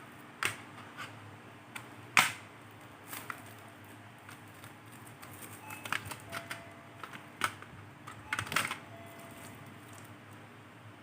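Scattered clicks and knocks from a small SSD and a laptop hard-drive caddy being handled. The loudest knock comes about two seconds in, and a quick run of clicks comes near the end.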